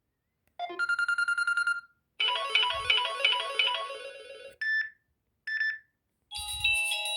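Stock Samsung Galaxy Tab 3 ringtones played one after another with silent gaps between them. First comes a rapid pulsing electronic tone, then a short repeating melody. Two brief chimes follow, and another bell-like tune starts near the end.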